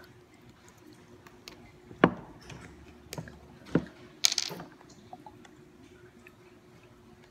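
Tableware and a hot-sauce bottle handled at a meal table: a few sharp knocks, the loudest about two seconds in, then a short rustle just after four seconds as the bottle is picked up. A faint steady hum runs underneath.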